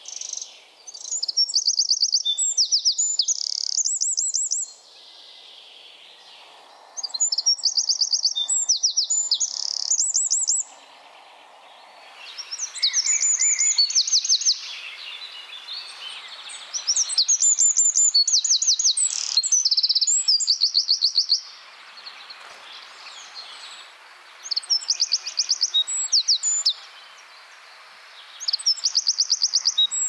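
Male Eurasian wren singing its loud song in repeated bouts, each a few seconds of rapid high trills and rattling notes, with short pauses between. There are about six bouts, coming every four to six seconds.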